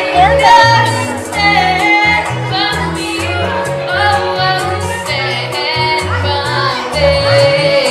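A woman singing into a microphone over a recorded bachata backing track, with a repeating bass line and evenly spaced percussion ticks; she holds and slides through long sung notes.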